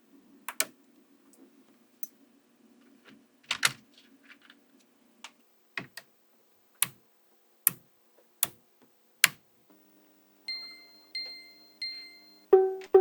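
Small magnetic balls clicking sharply as they snap together, about a dozen separate clicks at uneven intervals. About ten seconds in, light music with plucked notes starts.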